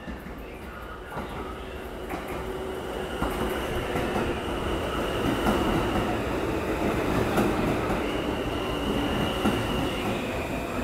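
R160A-2 subway train pulling into an elevated station, growing louder as its cars roll past. Its steel wheels squeal in a thin high tone over the running rumble, with a few clacks over the rail joints.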